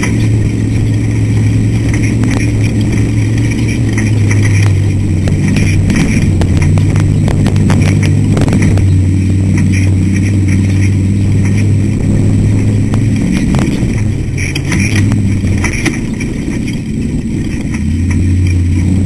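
Ultra4 off-road race car's engine running hard at speed over rough desert ground, with knocks and rattles from the chassis and suspension, a cluster of them about eight seconds in. The engine note drops back for a few seconds in the last part and picks up again near the end.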